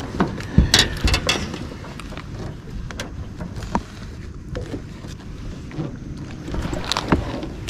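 Handling knocks and clicks, several close together in the first second and a half and a few scattered after, over a steady low rumble of wind on the microphone.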